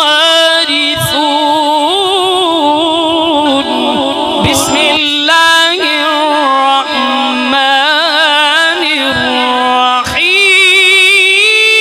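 A man's voice in melodic Quran recitation (tilawat), drawing out long ornamented notes with a wavering vibrato. There is a short break for breath about five seconds in, and a louder, higher phrase starts near the end.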